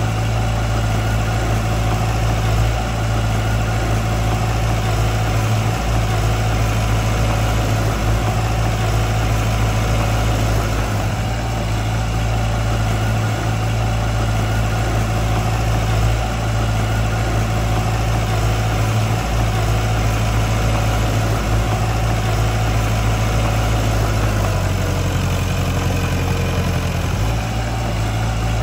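Diesel engine of heavy construction machinery running steadily at a low, even speed; its note changes for a couple of seconds near the end.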